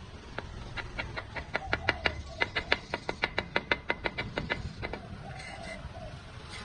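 A rapid run of about two dozen sharp taps, roughly five to six a second, from a bricklayer's trowel tapping clay bricks down into fresh mortar; the taps stop about two-thirds of the way through.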